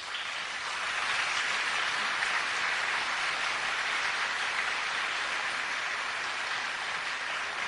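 Audience applauding: dense, steady clapping that starts suddenly and eases off slightly toward the end.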